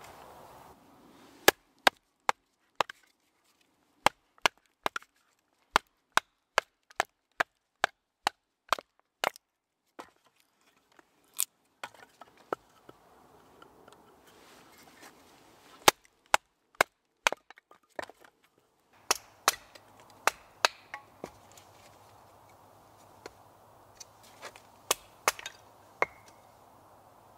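A blade chopping into wood on a chopping stump: a long run of sharp wooden strikes, mostly one or two a second, with short pauses between runs.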